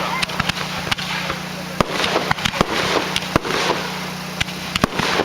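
Fireworks show going off: a dozen or so sharp bangs and reports at irregular intervals, with crackling between them.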